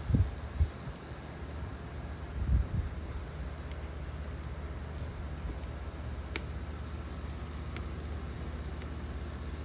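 Outdoor ambience: a steady low rumble with a run of faint high chirps, like an insect or small bird, and a few dull low thumps in the first three seconds.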